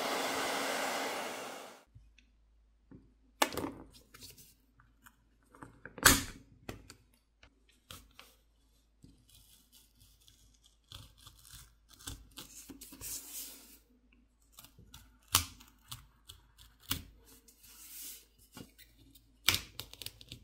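A hairdryer blowing steadily, switched off about two seconds in; then scattered clicks, knocks and short scrapes of a pry tool working a phone's plastic backplate off its frame against softened adhesive, with the loudest click about six seconds in.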